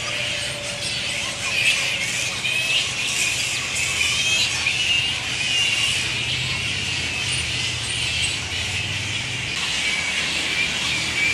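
A roosting colony of flying foxes, mostly grey-headed flying foxes, keeps up a constant chorus of overlapping squeals and chittering calls, with a low steady rumble underneath.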